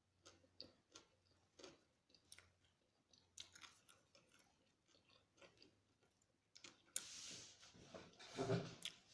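Faint wet chewing of a fried chicken and coleslaw sandwich close to the microphone, with small mouth clicks. About seven seconds in, a louder noisy stretch lasts roughly two seconds.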